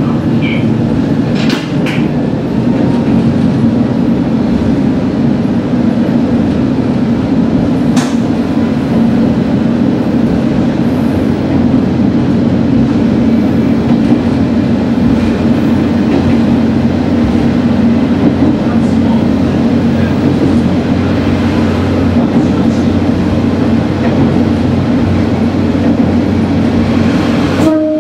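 Diesel railcar running along the track, heard from inside the cab: a steady low engine drone with rail noise underneath, and a single sharp click about eight seconds in.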